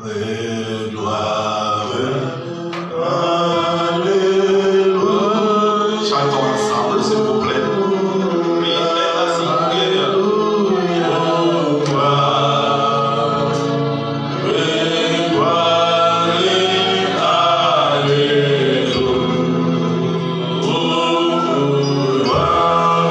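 Two men singing a praise and worship song into microphones, with a steady low musical accompaniment underneath.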